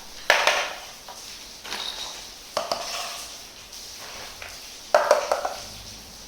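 Small toy kitchen set pieces clattering and clicking as they are handled and set down, in four short bursts.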